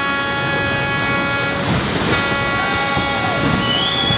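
A horn sounding one long, steady blast with many overtones over a rushing noise, broken about two seconds in by a brief surge of rushing noise.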